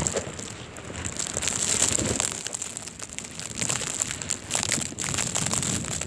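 Strong blizzard wind buffeting the microphone with an uneven rushing noise, mixed with dense irregular crackling and rustling as the handheld device is moved.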